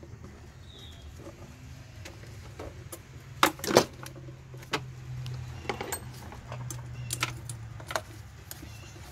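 Small metal clinks and knocks of a worm-drive hose clamp being handled and slipped onto a rubber intake hose, with two louder knocks about three and a half seconds in.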